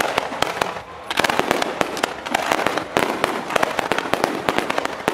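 Aerial fireworks display: shells bursting and crackling in rapid succession, many sharp bangs a second, with a brief lull about a second in.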